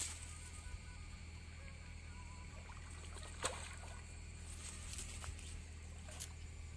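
A hooked fish thrashing and splashing at the water's surface as it is played on a rod: a few short splashes, the sharpest about three and a half seconds in, over a steady low hum.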